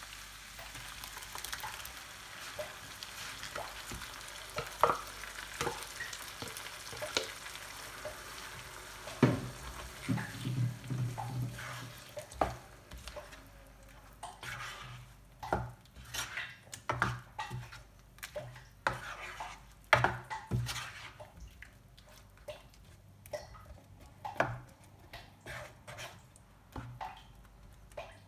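Beef pieces sizzling in oil in a nonstick frying pan as puréed tomatoes are added, the sizzle dying down about halfway through. A spatula scrapes and knocks against the pan in separate strokes as the tomato masala is stirred.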